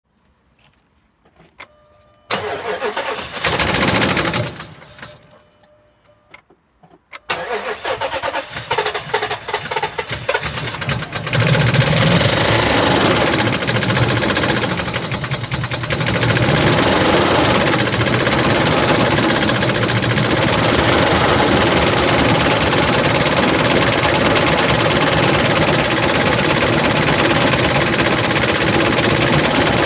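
2007 Dodge Ram 1500's 4.7-litre V8 petrol engine being started. A first loud burst a couple of seconds in dies away. Then stuttering cranking from about seven seconds in catches after a few seconds, runs up and settles into a steady idle from about sixteen seconds on. The engine has no compression in cylinder 1.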